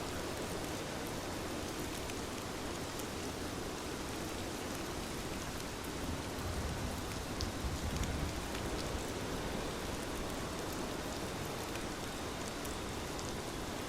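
Steady rainfall with scattered faint sharp ticks, and a brief low rumble swelling about halfway through.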